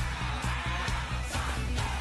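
Background pop music with a steady, heavy bass beat and singing.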